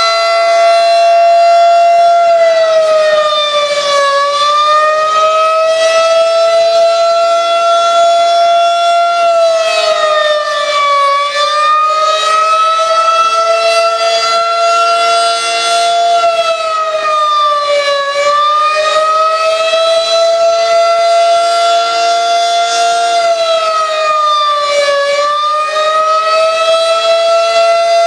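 Federal Signal 2001-SRN rotating electromechanical civil defense siren sounding its attack signal, a loud continuous tone. The pitch mostly holds level but sags briefly about every seven seconds and then climbs back.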